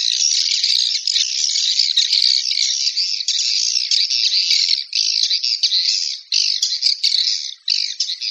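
Swiftlets twittering in a dense, high-pitched chatter that breaks up into separate chirps over the last few seconds. It is a swiftlet calling sound, used to lure swiftlets into a nesting house.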